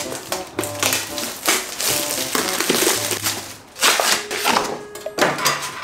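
Plastic packaging of a self-heating hot pot being torn and crinkled open, in repeated crackling bursts, over background music.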